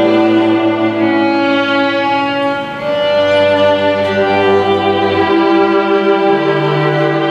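Music on bowed strings: long held notes over a lower line. The low note stops about five seconds in and a new one enters a second later.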